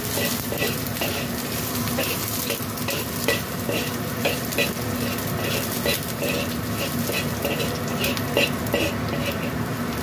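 Chopped garlic sizzling in hot oil in a wok while being sautéed until fragrant, with a metal spatula scraping the wok in a steady rhythm, about two or three strokes a second.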